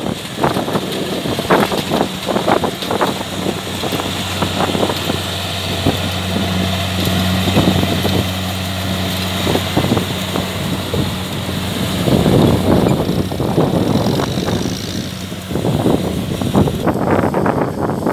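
Farm machine's engine running steadily, with wind buffeting the microphone and irregular knocks.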